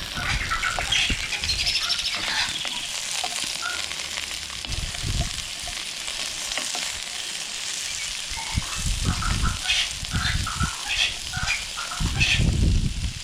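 Onion and capsicum sizzling and crackling in hot oil in a cast iron pot over a campfire, with intermittent low rumbling that is loudest near the end.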